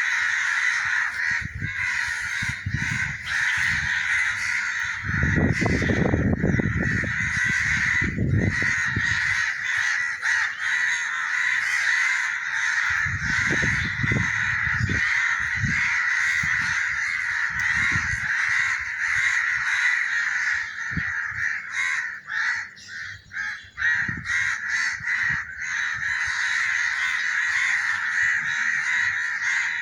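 A large flock of birds calling all at once in a dense, unbroken chorus. Low rumbles break in about five seconds in and again around thirteen seconds.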